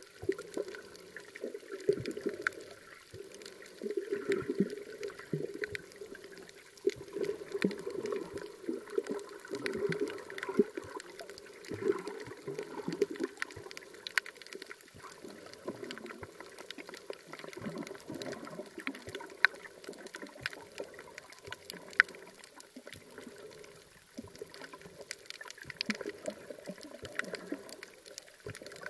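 Muffled underwater sound picked up by a submerged camera while snorkelling: uneven surges of sloshing, gurgling water, dotted with scattered sharp clicks.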